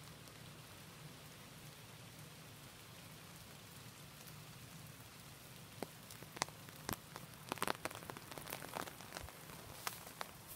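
Steady hiss of rain, with sharp, irregular taps and drips starting about halfway through and coming in small clusters.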